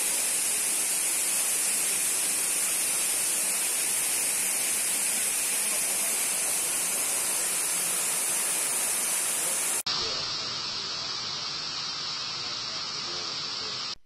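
Steady rush of a waterfall and the fast stream below it, a loud, even hiss. About ten seconds in it changes abruptly to a slightly quieter, duller rush.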